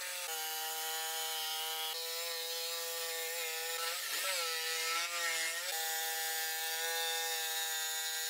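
Electric jigsaw running and cutting a curve through wooden planks: a steady motor whine over the rasp of the reciprocating blade. The pitch sags briefly about halfway through, then recovers.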